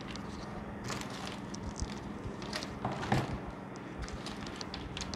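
Plastic sheet rustling and crinkling in several short rustles as it is handled and laid over a laptop screen panel, over a steady low hum.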